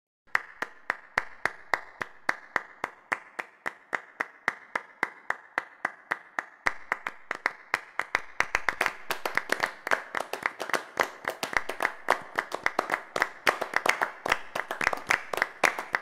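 A group of singers clapping their hands in a steady, even rhythm as body percussion for the song's intro. About halfway through, more claps join between the beats and the clapping gets fuller and louder.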